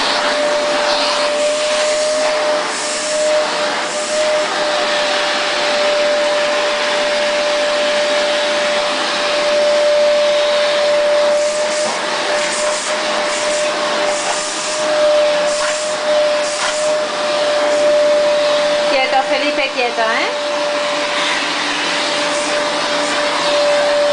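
Vacuum cleaner running steadily, its motor noise carrying one constant high whine. A short wavering voice-like sound cuts in about three-quarters of the way through.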